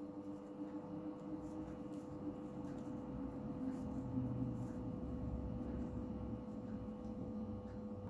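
Quiet room tone with a steady hum, and faint rustling and ticks of yarn being worked with a crochet hook.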